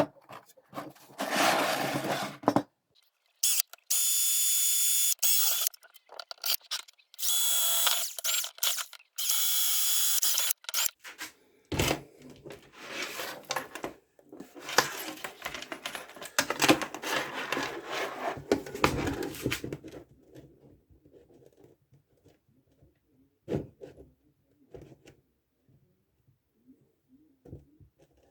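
Power drill running in several bursts of a few seconds each, its motor whining steadily, followed by a stretch of scraping, rattling work noise and then scattered light clicks.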